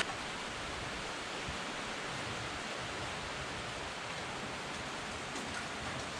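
Steady rain falling: an even hiss with no distinct drips or knocks.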